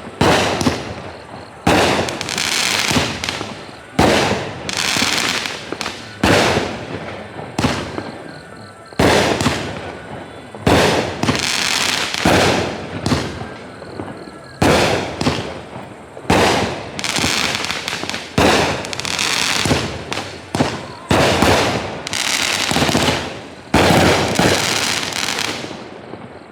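Fox Fireworks "Time Travel" firework going off: a sharp shot about every second or so, each followed by a long, fading crackle, in a steady run of around twenty shots.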